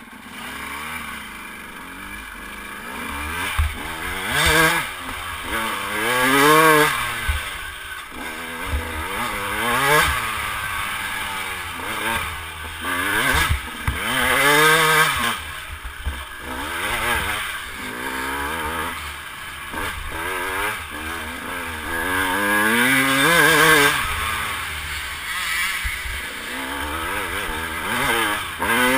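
Dirt bike engine revving up and dropping back again and again as the bike is ridden over rough trail and up a steep dirt climb, with short knocks and rattles from the bike over the ground, heard from a helmet-mounted camera.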